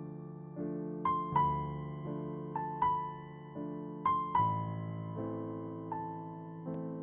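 Soft background music played on an electric piano: single melody notes struck every half second to a second over held bass chords, each note dying away slowly.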